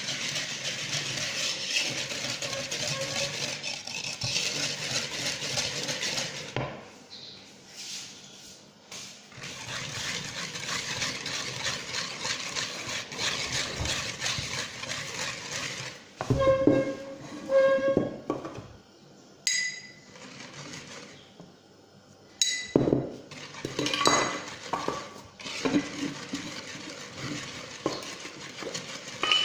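Wire whisk beating a thin liquid batter in a wooden bowl: a fast, scratchy, steady whisking. In the middle the whisking stops for a while, and there are sharp clinks and knocks of kitchenware, several of them ringing on briefly. Then the whisking starts again near the end.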